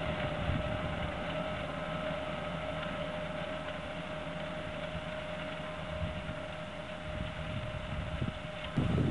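New Holland tractor running steadily while pulling a maize planter, with a constant whine over the engine noise. Near the end a sudden louder rush of noise comes in.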